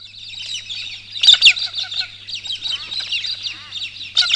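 Many wild birds chirping and calling together in an early-morning chorus, with louder bursts of calls about a second in and near the end. A faint steady low hum runs underneath.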